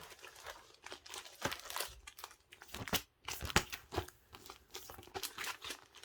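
Plastic packaging crinkling and rustling as bagged items are handled, in an irregular run of crackles that fills the whole stretch.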